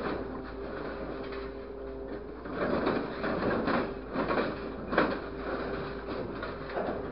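Grapple truck's hydraulic crane working, with a steady hum from the engine and hydraulic pump. Scrap metal clatters as the grapple handles it, with a sharp metal clank about five seconds in.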